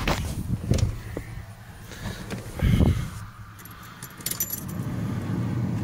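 Keys jangling on the key ring hanging from the ignition of a 1987 Ford F-250, over the steady low rumble of its 6.9-litre diesel idling through straight pipes. A low thump comes about halfway through.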